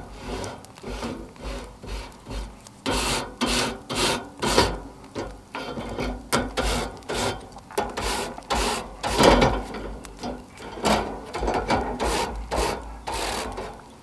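Grill brush scrubbing wire mesh grill grates over an open fire: rough back-and-forth scraping strokes, about two a second, that grow stronger about three seconds in.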